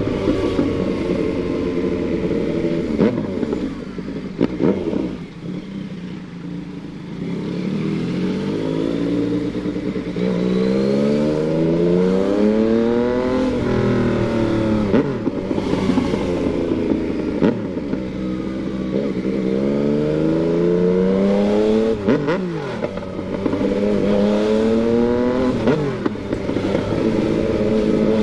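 Yamaha MT-09's three-cylinder engine pulling hard, its pitch rising through each gear and dropping at each upshift, several times over, with a short stretch off the throttle about five seconds in.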